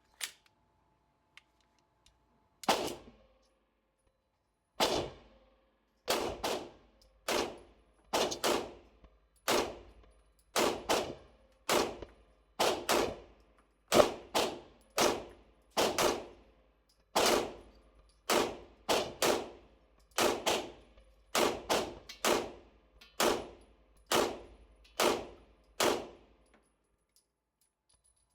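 Airsoft gun firing a long string of single shots at an uneven pace, roughly one every half second to a second. Each sharp crack dies away with a short metallic ringing.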